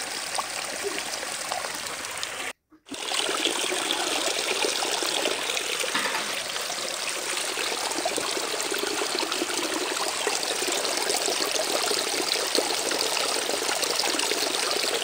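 Steady trickling, running water like a small stream. It drops out for a moment about two and a half seconds in, then resumes a little louder.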